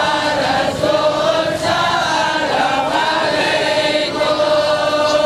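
A crowd of men chanting together in unison, a devotional chant sung on long held notes.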